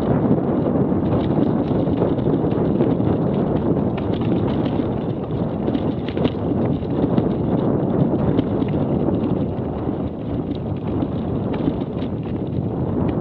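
Mountain bike rolling down rocky singletrack: the tyres crunch and clatter over loose stones and the bike rattles, with many short knocks throughout. Wind buffets the action camera's microphone.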